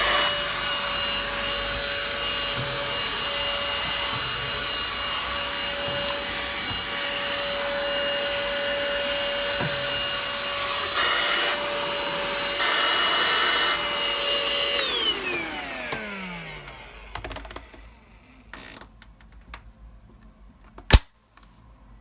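Cordless stick vacuum cleaner running with a steady high motor whine, its suction noise swelling twice. About fifteen seconds in it is switched off and the whine falls away over about two seconds, followed by a few light clicks and one sharp click near the end.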